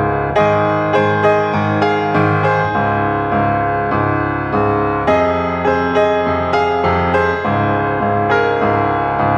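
Background piano music, notes struck at an even pace of about two a second.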